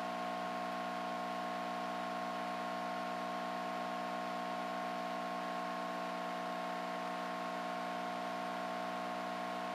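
Handheld hot air gun blowing steadily, a constant whir of its fan motor with a hiss of hot air, used to add heat to a circuit board on a griddle during BGA reflow.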